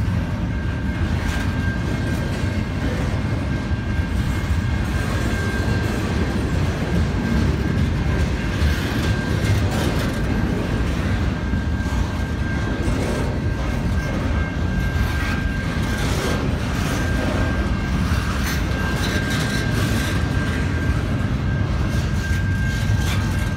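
Double-stack intermodal freight train rolling past: a steady rumble and clatter of the well cars' wheels on the rails, with a thin steady high tone above it.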